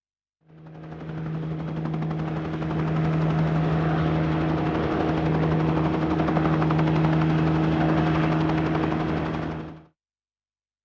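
Surround-panning test sound: a mechanical drone with a steady low hum under a fast, even rattle, sent round the 5.1 speakers clockwise to check that the sound moves smoothly between them. It fades in, swells about two seconds in, and cuts off suddenly near the end.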